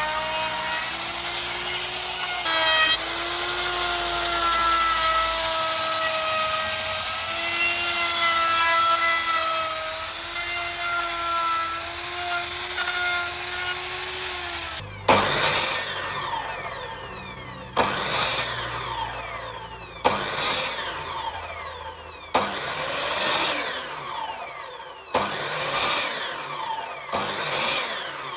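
Angle grinder working wood: first a steady high motor whine, then from about halfway a series of sharp strokes roughly every two and a half seconds as the disc bites into the wood, the pitch sliding between strokes.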